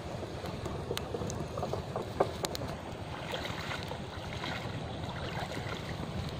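Wind buffeting the microphone over a steady outdoor wash of noise, with scattered sharp clicks; the loudest click comes about two seconds in.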